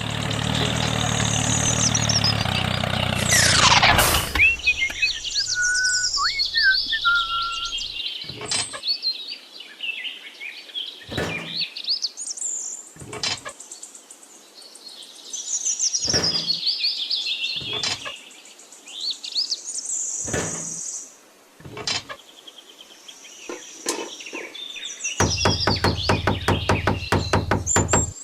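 Birds chirping throughout, over a series of sharp knocks every couple of seconds. A small motor runs for the first few seconds and starts again near the end with a rapid rattling rhythm.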